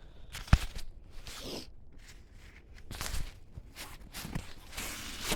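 Handling noise from a nylon hunting waist pack: a sharp click about half a second in, then several short bursts of fabric rustling as hands go into it.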